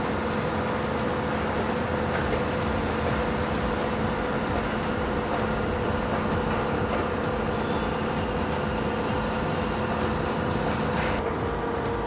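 Steady machine drone with a constant low hum and no letup.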